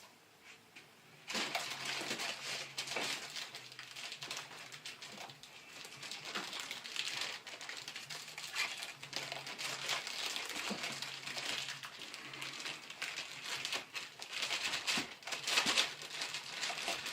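Packaging being handled during unboxing: a steady run of crinkling and rustling with small knocks, starting about a second in.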